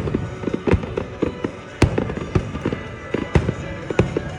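Fireworks bursting overhead in quick, irregular succession: many sharp bangs and crackles, the loudest a little under two seconds in.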